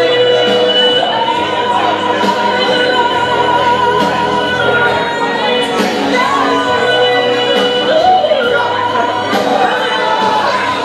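Loud music with a singer holding long, steady notes over a low bass line.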